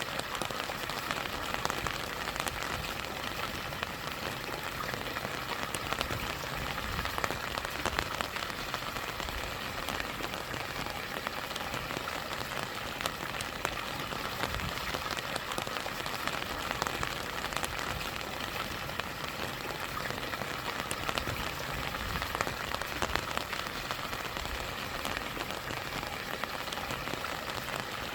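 Steady rain falling, with many separate drops ticking close by, over the continuous rush of stream water.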